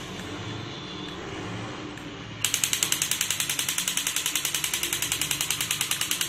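A battery-operated crawling Spider-Man toy's gear motor whirs. About two and a half seconds in, its toy gun starts a loud rapid-fire rattle of about ten shots a second.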